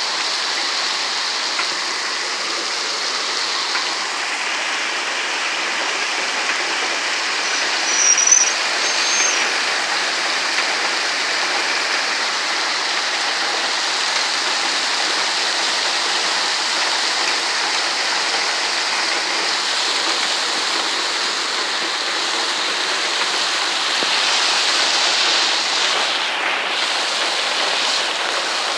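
Heavy rain pouring steadily in a storm, with a brief high squeak about eight seconds in.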